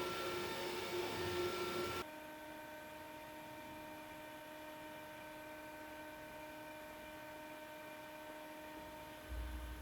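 Faint steady electrical hum made up of several steady tones. A louder, noisier stretch cuts off abruptly about two seconds in, and a brief low thump comes near the end.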